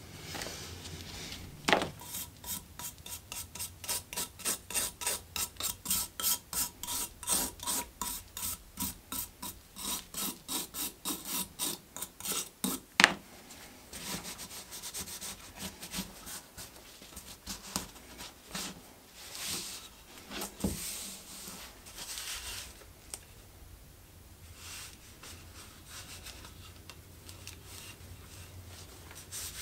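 A cloth rubbed briskly back and forth over the wooden body of an old fillister plane, about four strokes a second. A sharp wooden knock comes about halfway through; after it the rubbing goes on softer, in slower, irregular strokes.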